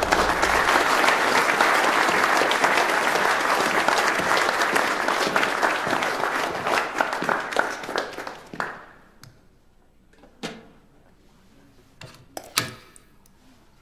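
A roomful of people applauding, the clapping dying away after about eight seconds. A few separate knocks follow near the end.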